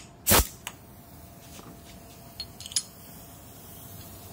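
A short, loud blast of escaping compressed air as the coiled air hose's quick coupler is released from the pneumatic air hammer, followed by a few light metallic clicks and clinks from handling the coupler and tool.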